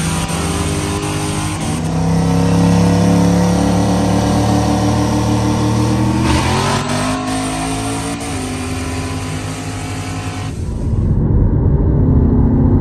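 High-horsepower pickup truck engine at full throttle in a race, its pitch climbing through the gears with shifts about two, six and eight seconds in. Near the end the sound turns to a dull low rumble.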